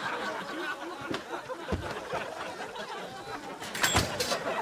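Studio audience laughter tailing off, with two sharp knocks: one about two seconds in and a louder one near the end.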